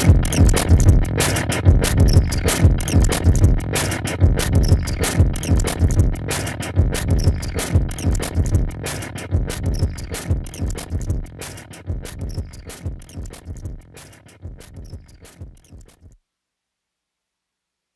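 Electronic synth music with a fast, dense percussive beat, fading out gradually and stopping about sixteen seconds in, followed by silence.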